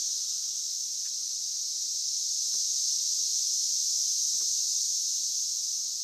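A chorus of periodical cicadas: a dense, unbroken high-pitched hiss like TV static, holding steady.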